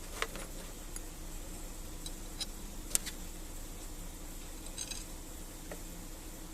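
Small metal parts and hand tools clinking and tapping as they are handled, a few sharp clicks spread out over a steady low hum.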